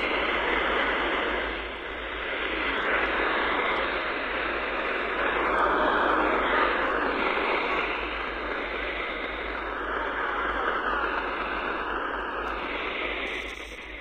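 Portable shortwave receiver tuned to an empty frequency in the 11 m band, its speaker giving a steady loud hiss of static with faint wavering whistles coming and going; no station is coming through.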